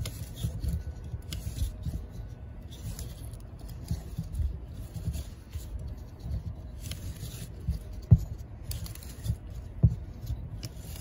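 Rope pulley of a Honda GX120 recoil starter being turned by hand inside its plastic housing to wind up the new recoil spring: rubbing, scraping and light rattling, with a couple of sharper knocks near the end.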